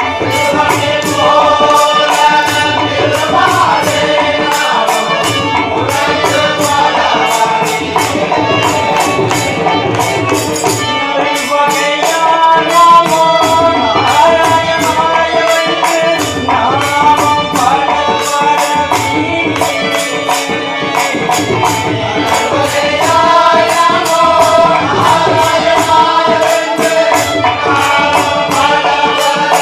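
Men's group singing a Tamil devotional bhajan, with jingling hand percussion ticking out a steady beat a couple of times a second and a drum underneath.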